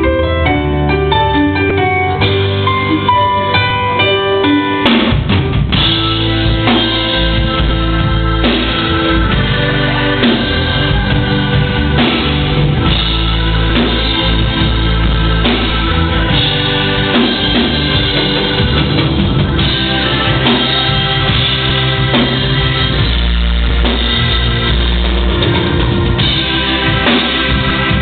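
Live rock band playing, heard from the audience: piano or keyboard notes alone at first, then about five seconds in the drum kit and the rest of the band come in together and play on steadily.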